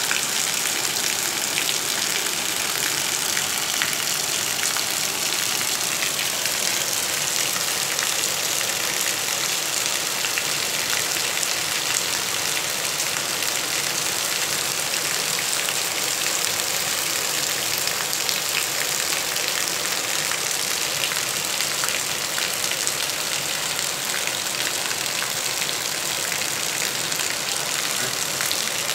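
Heavy rain falling steadily: a dense, even hiss of drops striking the ground, walls and roofs, with fine pattering ticks through it.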